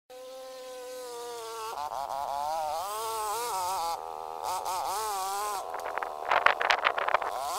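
A small engine-driven machine clearing snow whines, its pitch rising and falling as the load changes. It ends in a run of loud rattling clicks near the end.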